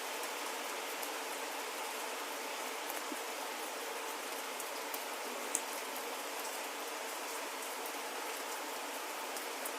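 Steady rain falling, an even hiss with scattered drops ticking on a surface, one sharper drop about five and a half seconds in.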